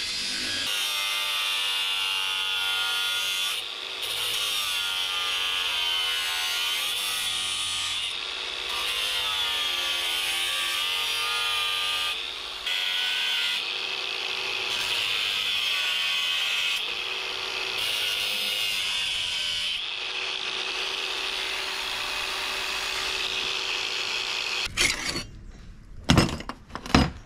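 Angle grinder with a thin cut-off disc cutting through the steel blade of an old sugarcane machete; its whine wavers and dips several times as the disc bites and eases. The grinder stops near the end, followed by a few sharp knocks.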